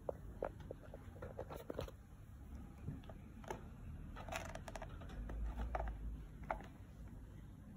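Light, irregular clicks and scrapes of a plastic box knocking and rubbing against the wire bars of a hamster cage as it is handled. A small cluster of clicks comes about four and a half seconds in.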